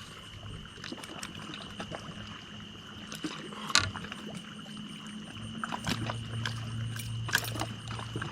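Scattered small knocks and clicks aboard a fishing boat, over a steady low hum and a steady high-pitched whine.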